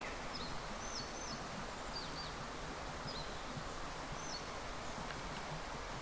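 Steady rush of running water in a forest gorge, with a small bird giving short high calls over and over, roughly once a second.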